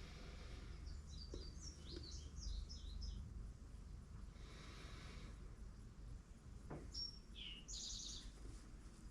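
Faint small-bird chirping in two clusters of quick high notes, one about a second in and one near the end, over a steady low hum.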